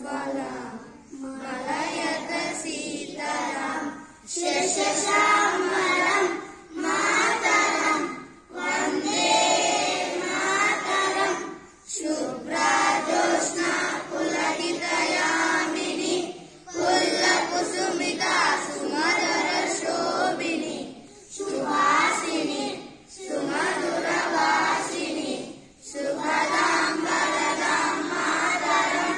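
A group of young children singing together in unison into a microphone, in sung phrases of a few seconds each with brief breaths between them.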